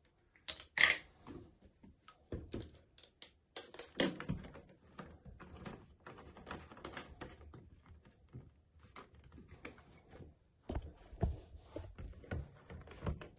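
Irregular light plastic clicks and taps from a trigger spray bottle and its pump head being handled in a sink.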